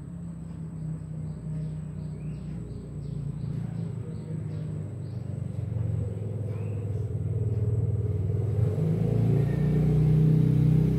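A low engine rumble that grows steadily louder, strongest near the end, like a motor vehicle running nearby.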